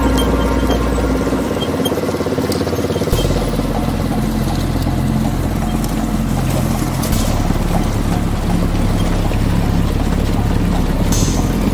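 Sport quad bike's engine running steadily while riding along a gravel track.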